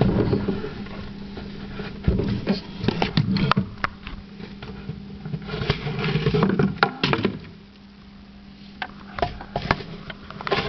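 Irregular knocks, bumps and clatter of toys and hands against a toy play kitchen, over a steady low hum; the knocking thins out a little past the middle.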